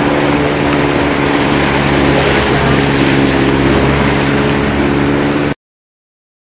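Motorboat engine running steadily over a rush of wind and water, cut off abruptly near the end.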